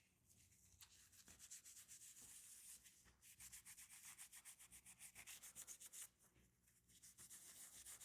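Faint, quick rubbing or scrubbing strokes on a small carburetor part, about six strokes a second, dying away about six seconds in and starting again more faintly near the end.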